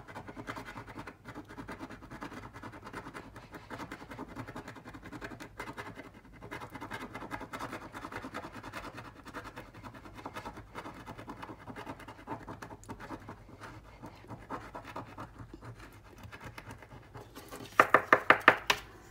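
A coin scratching dried paint off a paper scratch-off card, in steady, irregular scraping strokes as the hidden message is uncovered. Near the end comes a quick run of much louder strokes.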